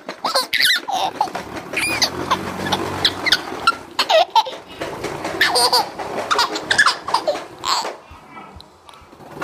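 A young child laughing and squealing in repeated high-pitched bursts, with a low engine hum underneath during the first half.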